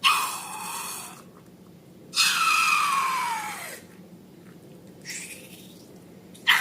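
Air squealing out of the neck of a balloon in several short bursts. The longest, about a second and a half, falls steadily in pitch as the balloon empties.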